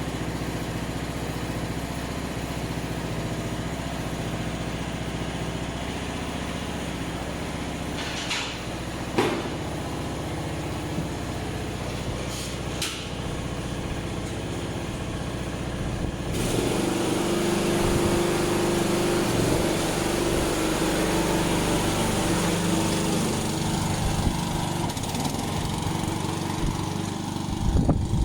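Lawn mower engine running steadily, with a few short knocks; about two-thirds of the way through it picks up and runs louder with a higher hum.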